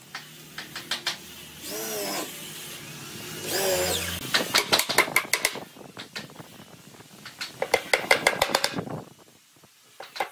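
A claw hammer knocking nails into a wooden chair seat in quick runs of blows, after two short wavering whines near the start.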